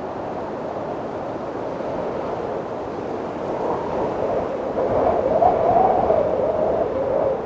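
Wind blowing steadily, swelling into a stronger gust about five seconds in with a wavering, moaning tone, then easing near the end.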